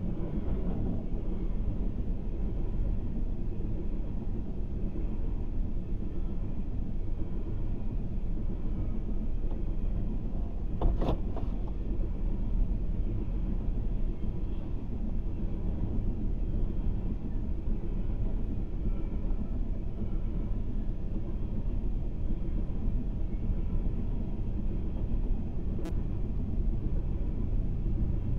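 A BNSF freight train of open-top coal cars rolling steadily through a grade crossing: a continuous low rumble of steel wheels on the rails, heard from inside a car. A single sharp clank about eleven seconds in.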